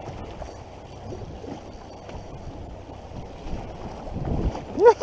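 Wind on the microphone and choppy sea water around a small boat: a steady noisy rush, with a few low thumps about four seconds in.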